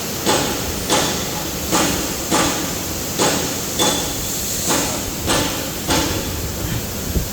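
Maxi-roll paper towel band saw cutting machine running with a steady noise, and a sharp sound that fades quickly about every two-thirds of a second, nine times in a row, as it works through its cutting cycle on the paper log.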